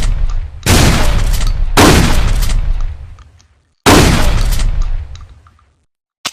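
Trench shotgun firing three shots, the first two about a second apart and the third two seconds later, each blast followed by a long echoing tail. Two short clicks near the end.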